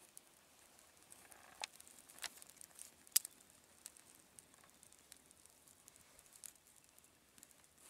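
Small twig fire crackling faintly as it catches, with scattered sharp snaps, the loudest about three seconds in.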